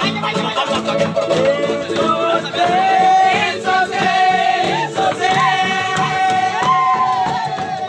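A group of men singing together to strummed acoustic guitars and a ukulele. One voice holds a long, steady note through the second half.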